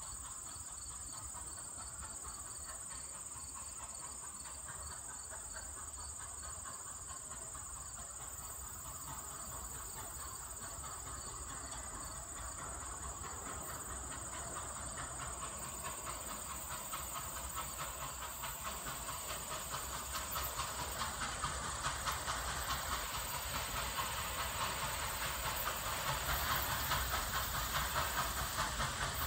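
Nickel Plate 765, a 2-8-4 Berkshire steam locomotive, approaching while working a train upgrade. At first there is only a steady hiss. From about halfway in, the locomotive's exhaust beats grow louder in a fast, even rhythm.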